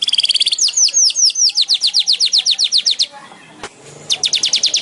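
Streaked weaver (manyar kembang) calling: a rapid, rhythmic series of short, high, falling notes, about eight a second. It breaks off about three seconds in and starts again a second later.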